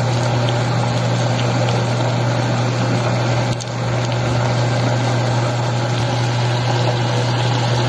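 Kangkong and tofu stir-fry cooking in a metal pot over the heat, a steady sizzling hiss over a steady low hum that dips briefly a little over three seconds in.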